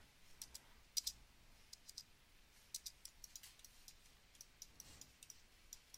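Faint, irregular clicks of a computer mouse and keyboard, a dozen or so light taps scattered through the quiet, with two close together about a second in.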